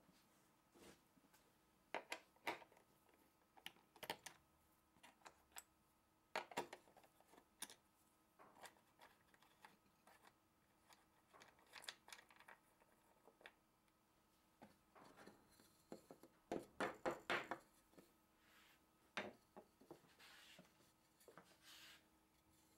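Scattered light clicks and knocks of wooden hold-down clamps being loosened with a screwdriver and the carved wooden board being handled free of the CNC bed, with a quick run of clicks about three-quarters of the way through.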